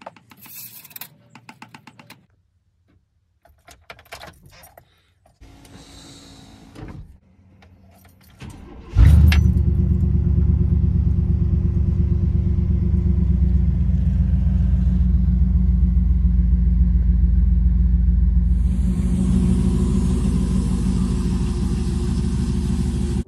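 Old-body-style Chevrolet pickup's V8 starts about nine seconds in and then idles steadily. Before that there are a few light clicks and key rattles.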